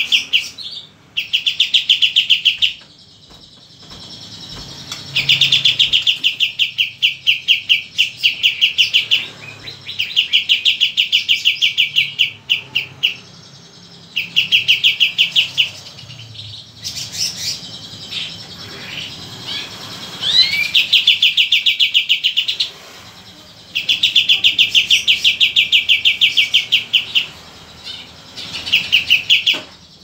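A caged young pied triller (kapas tembak) singing: bouts of fast repeated trilling notes, each lasting two to four seconds, with short pauses between them and a brief rising whistle about two-thirds of the way through. This is a newly kept bird that has already started to sing.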